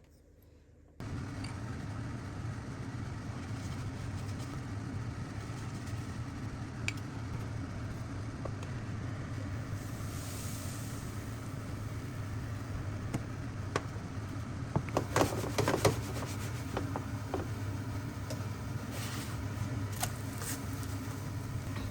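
A steady low hum that starts suddenly about a second in and runs on, with a short clatter of light knocks and clicks in the second half.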